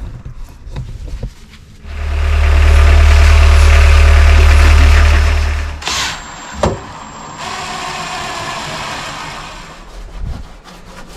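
A power tool running loudly for about four seconds, most likely cutting timber for a floor strut, followed by a couple of sharp clicks and a quieter steady running sound.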